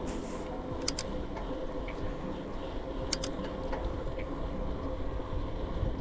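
Bicycle rolling along a trail: steady tyre and wind rumble with a faint constant hum, and sharp rattling clicks from the bike in two quick pairs, about a second in and again a little after three seconds.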